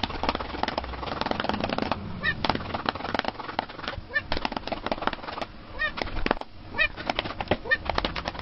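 A calico cat being patted rapidly on the back: a dense run of soft pats, with about five short, high calls from the cat spaced a second or two apart.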